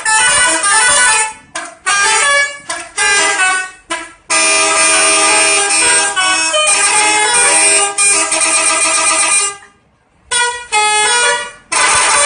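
Indonesian bus 'telolet' horn, a multi-tone musical air horn, playing a melody of quick stepped notes in several phrases, with short breaks between them and a near-silent pause about ten seconds in.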